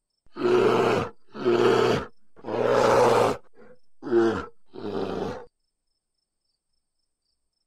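A bear growling: five gruff calls in about five seconds, the third the longest and the last two shorter.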